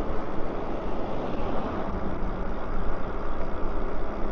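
Wind rushing over a body-worn microphone on an e-bike riding along, mixed with tyre noise on the asphalt: a steady rumbling hiss with no motor or engine note.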